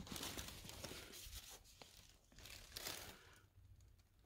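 Faint rustling and crinkling of old paper documents being handled and drawn out of a leather folder, with a few small clicks, dying down about three seconds in.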